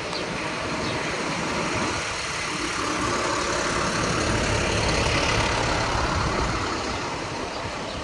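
Street traffic on a rain-soaked road: a steady hiss of tyres on wet pavement that swells to its loudest about halfway through, then eases off.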